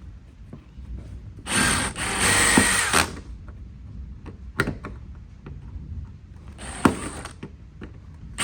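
Power drill running in two short bursts, the first about a second and a half long and the second about half a second, with a few clicks between them. The drill is working at a stainless steel rivet that holds the hatch lock cylinder, and the bit is not getting through.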